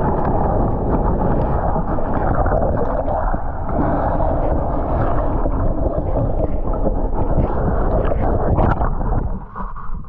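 Wind buffeting the microphone: a loud, steady rushing rumble that cuts in abruptly and eases slightly near the end.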